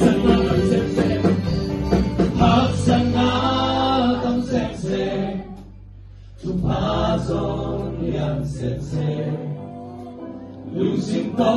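Three men singing a song together into microphones, live with a band and electric guitar. About halfway through, the music drops away for a moment. The voices then carry on over lighter accompaniment.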